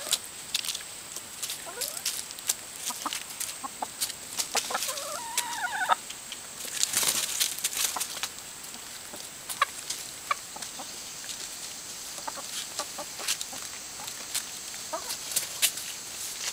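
Chickens, a rooster and hens, clucking, with a few short calls about five seconds in and again near the end, among many sharp little clicks and taps. A brief rustling burst comes about seven seconds in.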